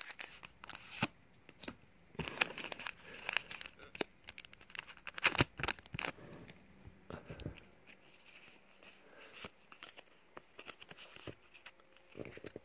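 A Pokémon trading-card booster pack's foil wrapper being torn open and crinkled, then the cards slid out and squared up: a run of sharp crackles and rustles, busiest and loudest in the first half and sparser later.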